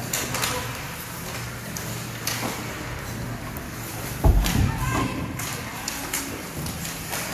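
Ice hockey game play in an arena: scattered sharp clacks of sticks and puck, and one heavy thud about four seconds in, over spectators' voices.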